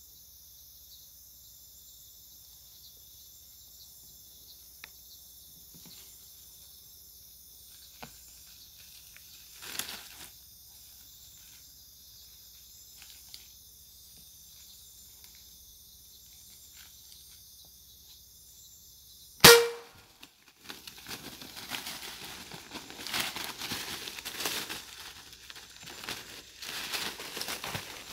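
Air rifle shot: one sharp, loud crack about two-thirds of the way in, over a faint steady high hiss. After it, dry leaves and brush crackle and rustle under someone moving through undergrowth.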